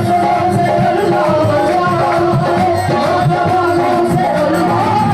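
Live qawwali music played loudly over a sound system: held melody lines over a steady beat of hand drums.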